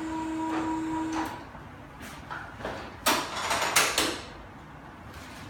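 A steady low hum that stops about a second in, then several short bursts of rustling from movement on a padded chiropractic bench as the practitioner positions the patient's head and neck.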